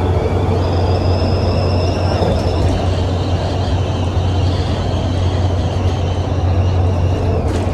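Single-decker bus with a Cummins ISBe diesel engine and Voith DIWA automatic gearbox running under way: a steady low drone with high whining tones above it. A short click comes near the end.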